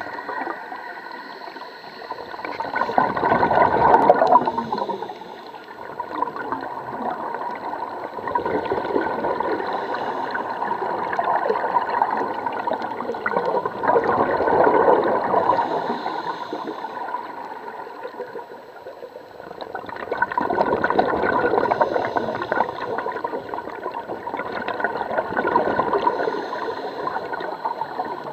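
Scuba diver breathing through a regulator underwater, the exhaled bubbles rushing and bubbling in surges that swell and fade every few seconds.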